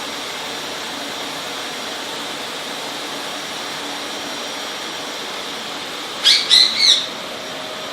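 A vacuum cleaner runs with a steady, even rush of noise. About six seconds in, an Indian ringneck parrot gives three short, shrill squawks over it.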